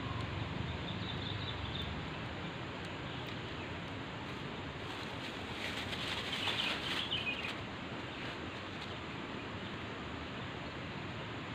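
Steady outdoor riverside background hiss, with a short, brighter scratchy sound around the middle.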